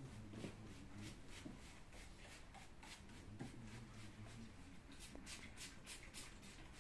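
Hand trigger spray bottle spritzing in short hisses, a few scattered ones and then a quicker run of about four a second near the end.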